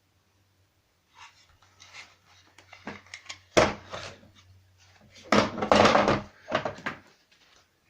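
Handling of a plastic tool carry case and its contents: a string of clicks, knocks and rustling, with a loud clack about three and a half seconds in and a louder clattering stretch around five to six seconds.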